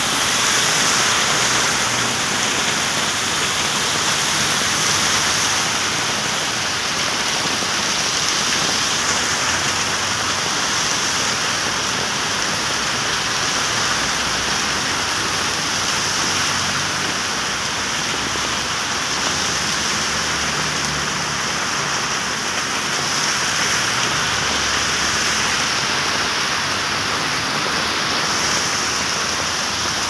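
Heavy downpour: a steady hiss of rain pouring onto a wet road, with cars driving through the standing water.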